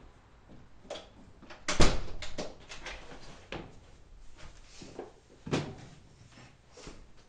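A series of knocks, clicks and thumps, the loudest a heavy thump about two seconds in, followed by a brief rattle and another thump near the middle.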